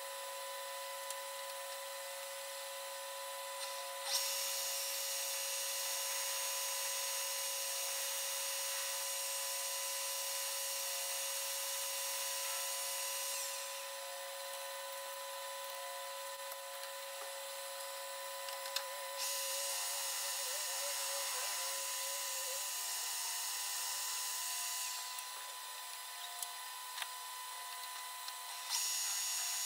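Metal lathe running with a steady motor-and-gear whine while a drill bores into the steel stub shaft held in its chuck. The high cutting squeal comes in three spells, starting about four seconds in, again around nineteen seconds, and again near the end, as the drill is fed in and backed out.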